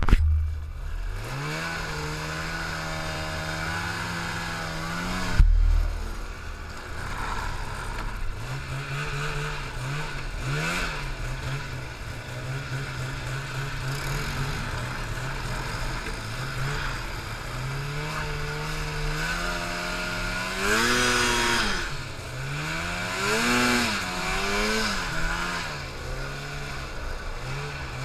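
Snowmobile engine running and revving, its pitch rising and falling with the throttle, with higher swells of revving a little past the middle.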